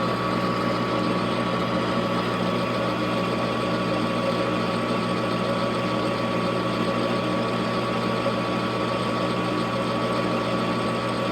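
Grizzly metal lathe running at about 360 RPM with the power feed engaged, the carriage moving forward along the bed. It makes a steady gear hum with a high whine on top.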